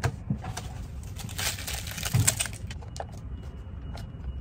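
Takeout food packaging being handled: an aluminium foil container and its lid crinkling and rustling, with scattered light clicks and knocks, over a low steady rumble. A faint high whine comes in about three seconds in.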